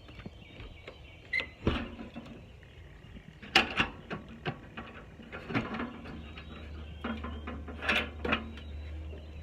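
Irregular knocks and clunks, a few louder ones spaced a second or two apart, with a low steady hum that sets in about six seconds in.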